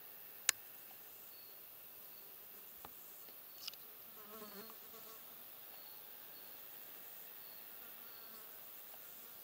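Faint outdoor quiet with a flying insect buzzing briefly, wavering, about four seconds in, and faint high ticks repeating about once a second. One sharp click sounds about half a second in.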